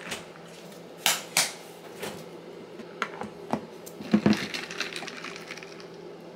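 A series of light clicks and taps from objects being handled: two sharp ones about a second in, a few single ones after, then a short cluster of clatter about four seconds in.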